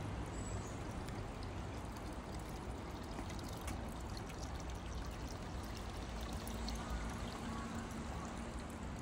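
Water pouring and splashing steadily.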